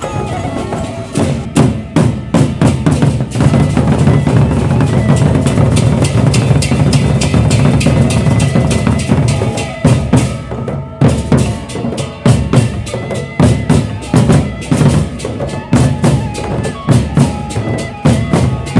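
Gendang beleq ensemble: large Sasak drums beaten in fast, dense patterns. About ten seconds in the playing breaks off briefly, then comes back as separate, accented strokes.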